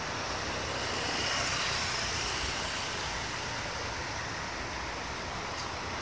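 Steady traffic noise of a bus terminal yard, buses and motorcycles running, swelling a little in the first two seconds as a motorcycle rides past.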